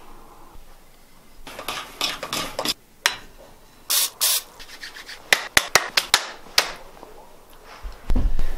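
Hands rubbing and handling things at a table, a string of scratchy rubbing noises. About four seconds in come two short hisses, then a quick run of sharp clicks, and a dull thump near the end.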